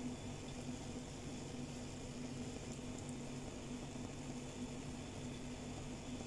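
A steady low motor hum with a faint even hiss over it.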